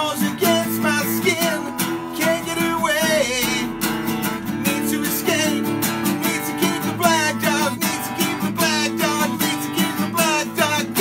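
Acoustic guitar strummed in a steady rhythm while a man sings over it, in a solo acoustic performance.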